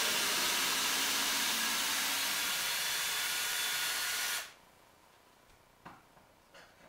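Cordless drill running steadily with a loud, hiss-like whir, then stopping abruptly about four and a half seconds in. A couple of faint clicks follow.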